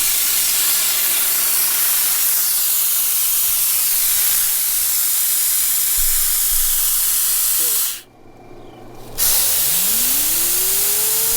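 Compressed air hissing steadily through a dryer vent cleaning hose and reverse skipper ball. About eight seconds in the air cuts out for about a second, then comes back, followed by a rising whine that levels off to a steady pitch.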